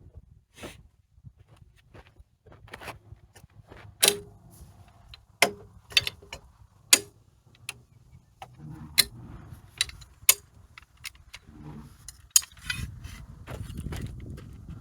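Irregular sharp metallic clicks and knocks of metal parts and tools being handled, a dozen or so strikes, with a low rumble near the end.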